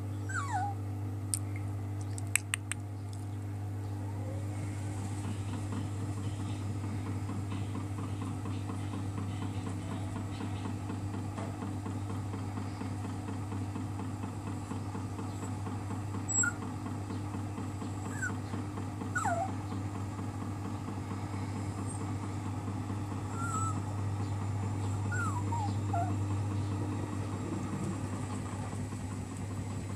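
Miele Softtronic W 2557 front-loading washing machine running with a steady low hum during its spin cycle. Several short whines falling in pitch sound over it at irregular moments, and a few sharp clicks come in the first few seconds.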